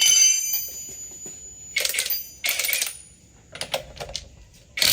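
A sharp metallic clink that rings on for about a second, then several short bursts, each lasting under a second, from a cheap cordless impact wrench being triggered. The last burst rises in pitch as the motor spins up.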